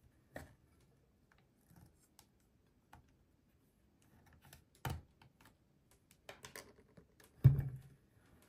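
Hands handling a plastic toy potion bottle: scattered light plastic clicks and taps, a knock about five seconds in, and a louder thump about a second before the end.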